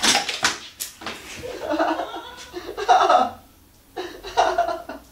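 A bucket of sawdust tipping onto a man off a trip wire: a sudden clatter and rush right at the start. Then people laugh.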